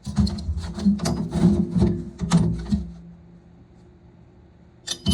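Tools knocking and clattering against each other as they are rummaged through and lifted out of a toolbox, for about three seconds. Near the end, a single sharp metal clink that rings briefly.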